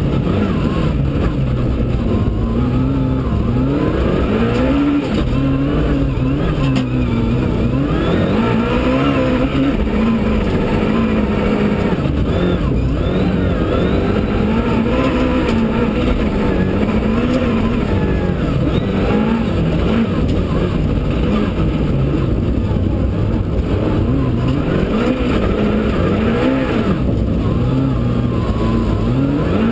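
Suzuki Swift S1600 rally car's 1.6-litre four-cylinder engine, heard from inside the cockpit, driven flat out on a snowy stage: the revs climb and fall back over and over as it accelerates through the gears and lifts for corners, over constant tyre and road noise.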